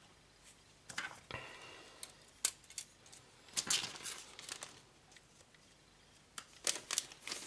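A hard plastic model-kit sprue being picked up and turned over in the hands: scattered light clicks and rattles of plastic, with a short faint scrape about a second and a half in.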